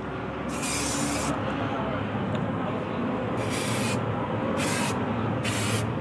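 Aerosol can of high-temperature spray paint hissing in four short bursts, the first the longest, as it is sprayed inside a microwave oven's rusted cavity.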